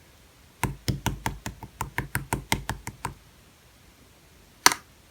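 A quick run of about a dozen taps or knocks, roughly five a second, for two and a half seconds, then one sharper, louder click.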